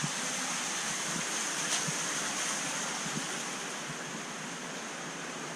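Steady rush of water circulating through the aquarium tanks' plumbing and filtration, with a faint steady high whine over it, easing off slightly toward the end.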